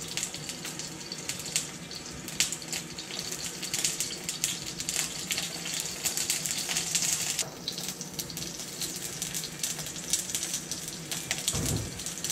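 Oil sizzling and crackling in a frying pan as ginger, scallion and whole spices fry in it: a steady hiss full of fine pops.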